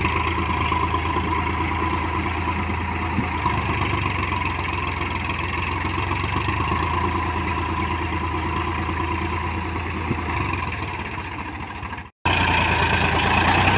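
Massey Ferguson tractor's diesel engine running steadily. About twelve seconds in it breaks off briefly, then runs on a little louder.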